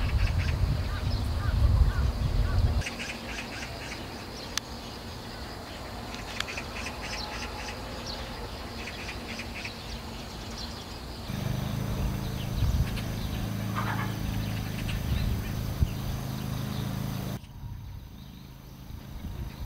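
Small birds chirping and calling on and off, over a low rumble that changes abruptly a few times.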